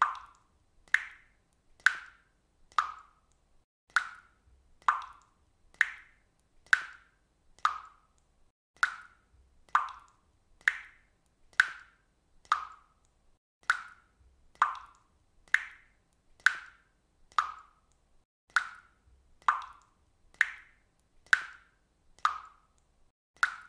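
Water dripping from a faucet, single drops plopping at an even pace of about one a second.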